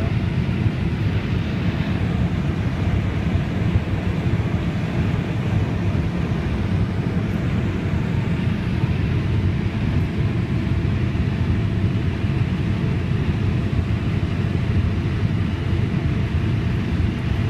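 Combine harvester picking corn: a steady drone of engine and threshing machinery, heard from inside the cab, unchanging throughout.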